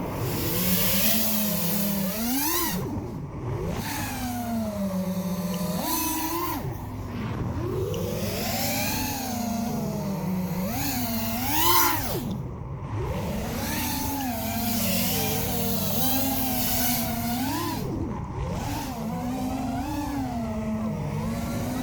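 FPV quadcopter's brushless motors and propellers whining in flight, the pitch rising and falling constantly with the throttle, with a sharp climb in pitch and loudness about twelve seconds in.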